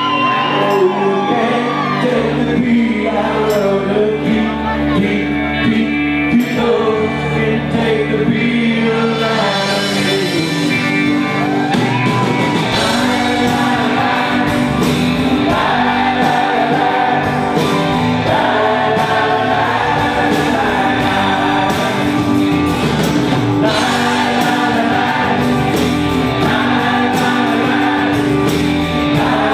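Live pop band playing a song: male voices singing over electric bass guitar, drums and keyboards.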